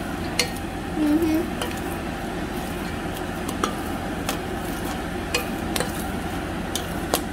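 Wooden spatula stirring freshly made popcorn in a stainless steel pot: a steady rustling scrape, with scattered sharp clicks and pops through it.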